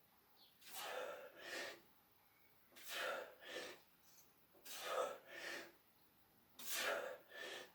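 A person breathing hard from the effort of an abdominal exercise. Two short breaths come close together, and the pair repeats about every two seconds, four times.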